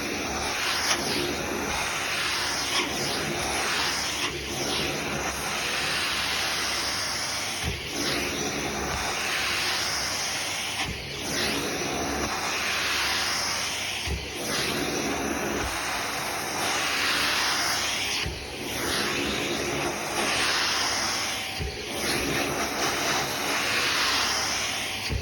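Vacuum cleaner running continuously, a steady rushing hiss that dips briefly about every three seconds.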